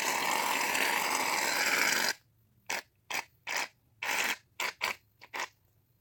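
Aerosol can of Barbasol shaving cream spraying: a steady hiss of about two seconds, then a string of short spurts.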